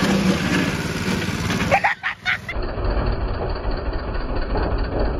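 Small gas engine of a homemade shopping-cart go-kart running steadily. About two seconds in there are a few short clattering knocks, and then the sound changes abruptly to a lower, rougher rumble.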